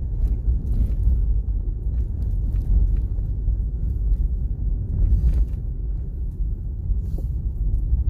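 Steady low rumble of a vehicle driving over a rough dirt road, heard from inside: tyre and road noise with the engine underneath, and a few faint knocks from the bumpy surface.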